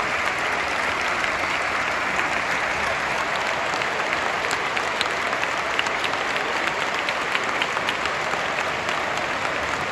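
A large football stadium crowd applauding steadily, a dense wash of many hands clapping.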